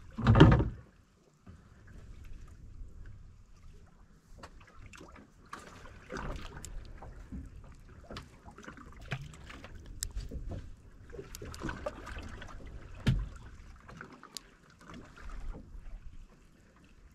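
Water slapping and sloshing against the hull of a small fishing boat, with scattered knocks and clicks, and a short loud thump right at the start.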